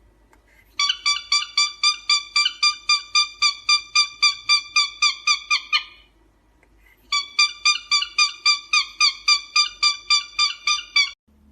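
A small animal giving rapid, evenly spaced high-pitched calls, about four a second, in two long runs with a pause of about a second between them.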